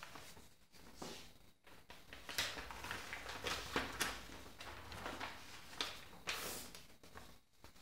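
Sheets of paper being lifted, turned over and handled, rustling and crinkling in a string of short, irregular scrapes.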